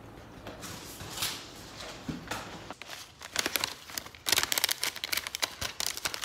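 Kraft-paper stand-up treat pouch crinkling and rustling as a hand reaches inside it. A few soft rustles at first, then dense crackling from about three seconds in, loudest in the last two seconds.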